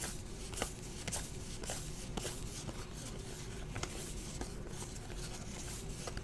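Trading cards being handled and flipped through by hand: soft, irregular clicks and slides of card stock, over a steady low hum.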